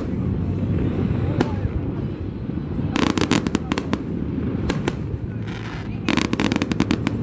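Aerial fireworks display: shells bursting with clusters of rapid crackling pops, a single crack about a second in, then rattling runs about three seconds in, near five seconds, and just past six seconds.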